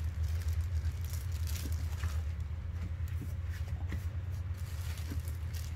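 A steady low hum runs under a few faint, scattered crinkles of a plastic trash bag and a half-cured resin sheet being handled and pulled.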